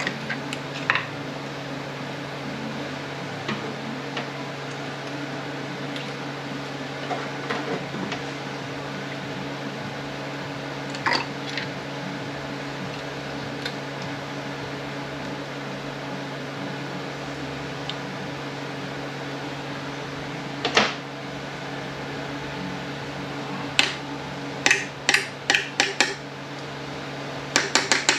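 Light clicks and knocks of metal transmission parts and hand tools being handled on the bench, scattered at first and then a quick run of several clicks near the end, over a steady low hum.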